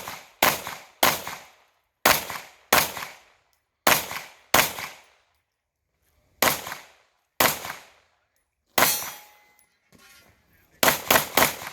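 Pistol shots fired during an action pistol stage: about a dozen sharp reports in singles and pairs with pauses of one to two seconds between them, the longest pause after a shot about nine seconds in that leaves a ringing tail, ending in three quick shots.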